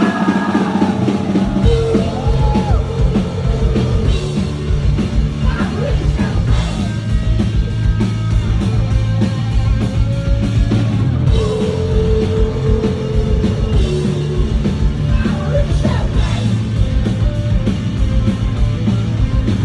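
Loud rock music, with a drum kit beating steadily under a sung, partly shouted vocal.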